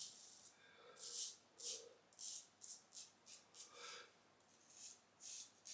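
Parker Variant adjustable safety razor with a Wilkinson Sword blade scraping through lathered stubble: about a dozen short, faint, scratchy strokes in quick irregular succession.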